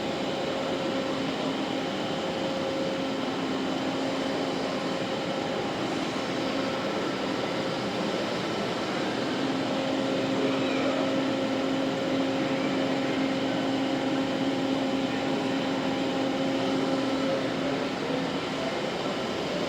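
Steady mechanical hum of machinery running in a large indoor hall, with a constant low tone over an even rushing noise, much like air-conditioning or ventilation equipment.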